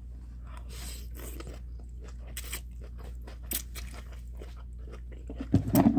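Close-up eating sounds of a person chewing and sucking in lo mein noodles: scattered wet mouth clicks over a steady low hum, with a louder burst of mouth noise near the end.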